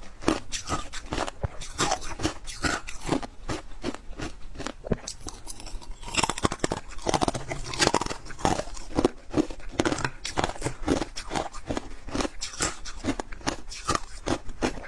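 Close-up crunching and chewing of freezer frost: a rapid series of crisp, crackling bites and chews, busiest a little under halfway through.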